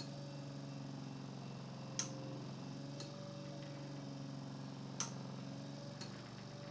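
Steady hum of a 200-watt 12-volt permanent-magnet motor spinning an electric-scooter wheel used as a flywheel at full speed. Over it an Omron relay clicks in pairs every three seconds, switching the supply on for about a second and off again.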